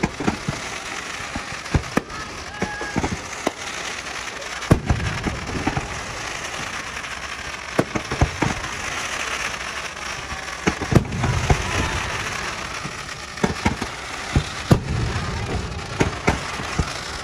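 Fireworks display: a rapid, irregular series of sharp bangs and cracks over a continuous crackling hiss, with heavier low booms several times.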